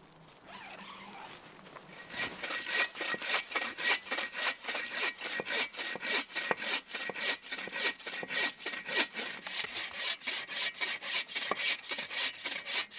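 Bow saw cutting through a dead, dry branch with quick, even back-and-forth strokes, about four a second. It starts about two seconds in, after a soft rustling.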